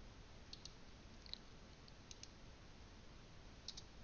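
Faint, scattered clicks of a computer mouse and keyboard, about half a dozen spread over the few seconds, against a quiet steady hiss of room tone.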